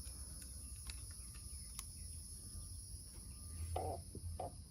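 Steady high-pitched chorus of crickets in the background, with a few faint light clicks from hand work on the engine.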